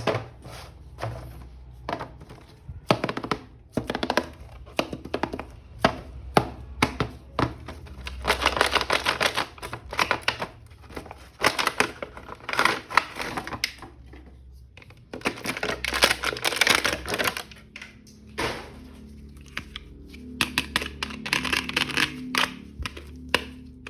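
Plastic toy packaging being handled and opened: many sharp clicks, with stretches of crinkly rustling, over faint background music.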